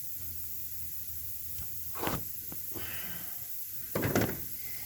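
Two brief handling noises, about two seconds in and again near the end, with a few small clicks between, over a steady low hum: bits of weather seal being picked out of an ignition coil connector.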